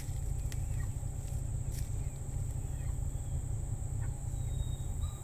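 Chickens clucking softly, a few short calls, over a steady low rumble and a faint steady high hiss.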